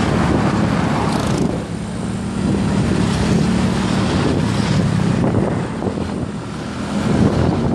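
Motorcycle riding in traffic: a steady engine hum with wind rushing over the microphone.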